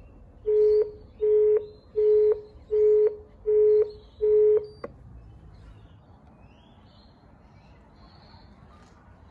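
Station help-point intercom speaker sounding six short, even beeps of one pitch, like a telephone busy tone, as its recorded train-information call ends, followed by a single click as the line cuts off.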